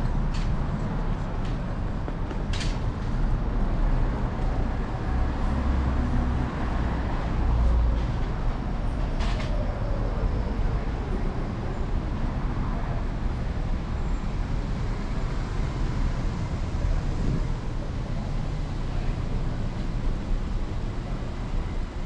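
Steady low rumble of wind and road vibration from an electric scooter rolling along a city sidewalk, picked up on its handlebars, with street traffic behind it. A couple of sharp clicks, about two and a half and nine seconds in.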